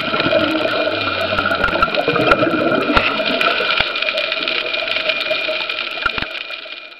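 Underwater noise picked up by a dive camera: a steady rushing sound with constant humming tones and scattered sharp clicks, fading out at the end.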